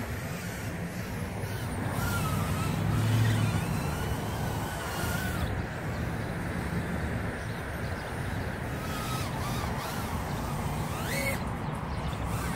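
Micro brushless quadcopter's motors whining as it flies on a 2S battery, the pitch rising and falling with the throttle, with a sharp upward sweep near the end. A steady low rumble runs underneath.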